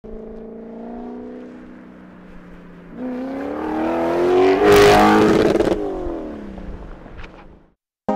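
Audi 4.2-litre V8 in a VW Beetle drag car running steadily, then accelerating hard about three seconds in with rising pitch, loudest as it passes close by; the pitch then falls as it pulls away and fades out.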